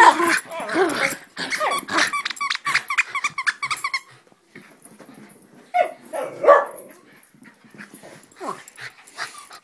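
American Eskimo dogs roughhousing, with a dense run of quick barks and growls in the first four seconds, then a few scattered bursts.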